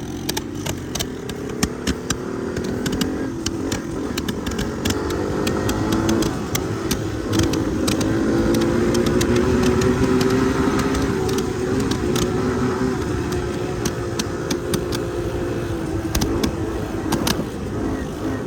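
Small off-road vehicle engine running under throttle, its pitch and level climbing through the first half and easing off after, with scattered sharp clicks throughout.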